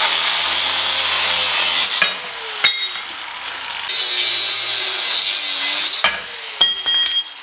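Angle grinder with a cut-off wheel cutting through painted steel plate, in two stretches, each a couple of seconds long. After each stretch the motor winds down with a falling whine. A few short metallic rings come near the end.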